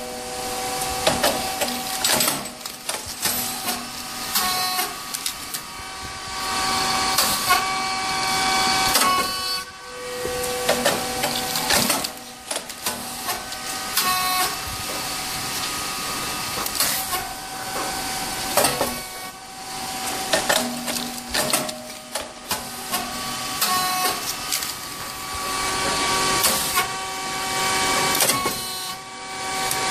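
SYP4506 rice cake popping machine cycling as it puffs Thai rice into chips. Sharp pops come every two to three seconds as the heated mold releases and the puffed chips are ejected. Between the pops there is hissing and steady high tones lasting a second or two.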